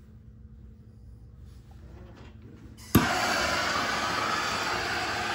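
Handheld brazing torch lit with a sharp pop about three seconds in, then the steady hiss of its flame.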